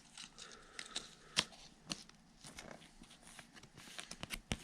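Trading cards being handled and sorted by hand: faint rustling and light clicks of card stock sliding against card, with a sharper tap about a second and a half in and another near the end.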